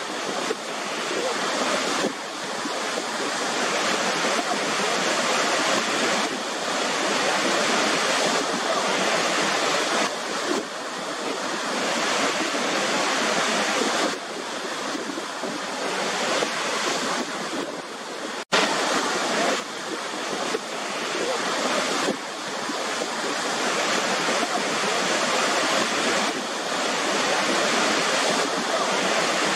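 Waterfall rushing: a dense, steady water noise that swells and eases back every few seconds, with a momentary dropout about two-thirds of the way through.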